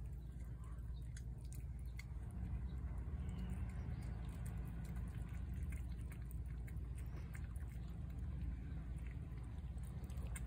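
Two cats eating wet chicken pâté from a plate, with faint, irregular chewing and licking clicks over a steady low background rumble.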